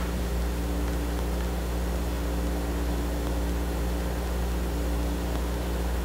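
Room air conditioner running: a steady low hum with fan noise.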